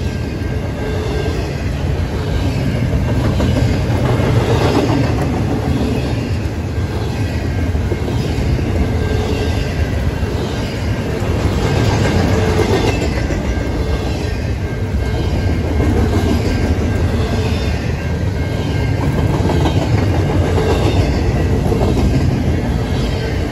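Norfolk Southern double-stack intermodal freight train passing close by: a loud, steady rumble and clatter of steel wheels on the rails. It swells and eases about every eight seconds as the cars go by.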